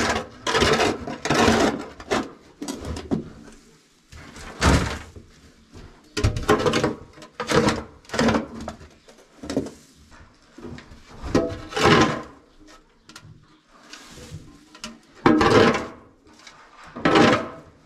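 Irregular scraping strokes, one every second or two, as spilled silage is cleared off the barn floor.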